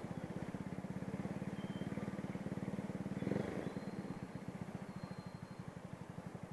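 Motorcycle engine running at low speed, a steady low throb, with a brief louder surge about three seconds in.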